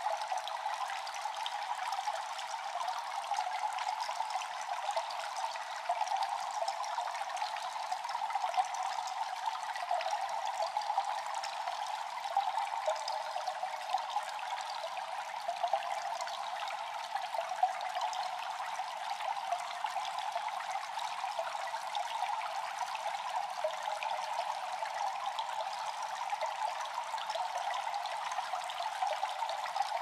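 Running water trickling and splashing steadily, a bright, even sound with no low rumble.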